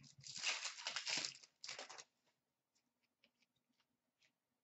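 Wrapper of an Upper Deck hockey card pack being torn open and crinkling for about two seconds, followed by a few faint ticks.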